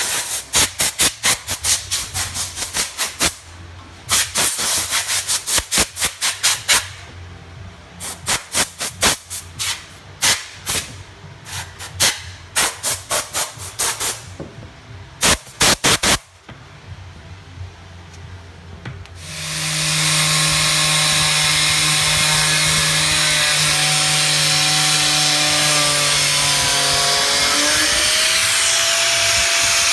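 Compressed-air blow gun blowing out an aluminium intercooler core in many short blasts of air, one after another, for the first half. About two-thirds of the way in, a loud steady hiss with a faint whistling tone takes over and runs on.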